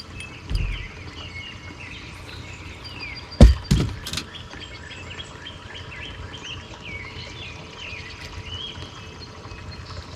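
Songbirds chirping and whistling steadily, with a dull thump about half a second in and two or three sharp knocks about three and a half seconds in, the loudest sounds.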